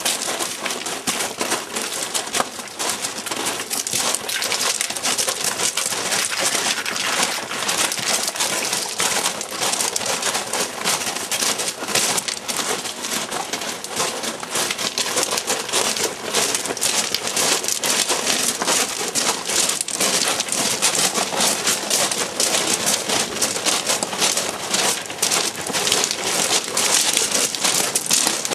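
Several people's footsteps crunching on railway ballast gravel, a dense, unbroken crackle of stones.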